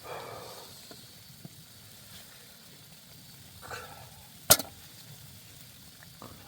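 Faint steady hiss with a single sharp, loud crack about four and a half seconds in: wood snapping in the snowstorm, branches breaking under the snow.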